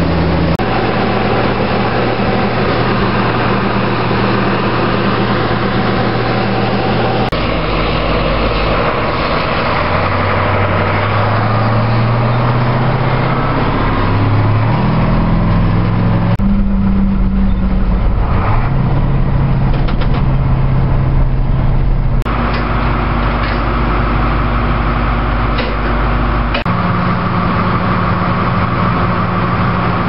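Harvest machinery engines running steadily across several quickly edited shots: a combine running while its unloading auger pours wheat into a grain truck, then a grain truck's engine driving along the field, rising in pitch as it picks up speed.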